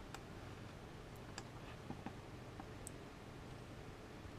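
A handful of faint, sparse clicks from a computer mouse and keyboard, a few per second at most, over low room hiss.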